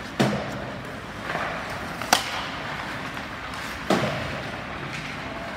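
Three sharp knocks or thumps, about two seconds apart, each with a short ring after it, over a steady background noise.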